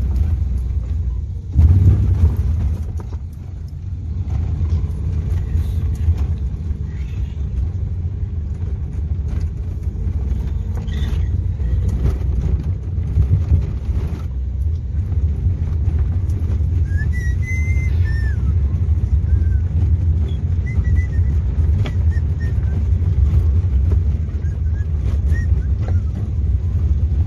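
Car driving, heard from inside the cabin: a steady low rumble of engine and road noise, with a louder jolt about a second and a half in. A few faint high chirps come in past the middle.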